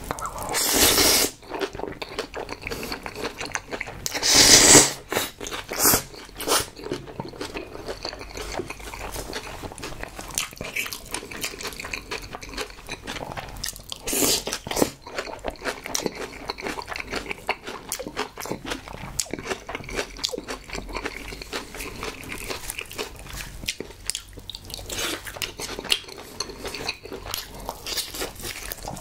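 Close-miked eating: slurps of mixed noodles about a second in and again around four to five seconds in, then steady chewing with many small wet clicks and smacks, and bites into braised pig's trotter (jokbal) near the end.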